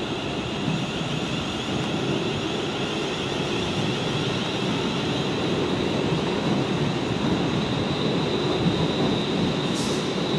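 London Midland Class 350 electric multiple unit moving slowly through the station, a steady rumbling noise, with a brief hiss near the end.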